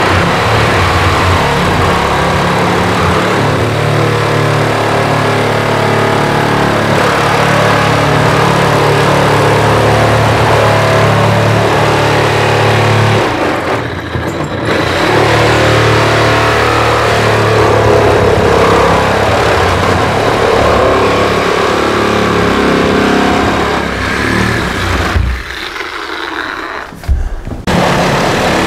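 Sawzall reciprocating saw cutting through a wall of OSB sheathing and corrugated steel siding, a loud steady buzz that pauses briefly about halfway and again near the end.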